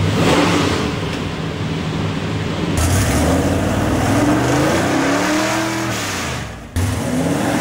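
Big-block Chevy V8 running on an engine dyno, steady at first and then revving up and back down in repeated swells. The sound cuts off abruptly just before the end and the revving picks up again.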